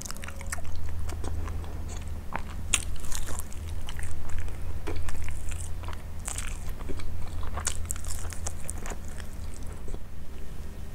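Close-miked eating of grilled chicken by hand: bites and chewing with irregular crisp crunches and sharp wet clicks.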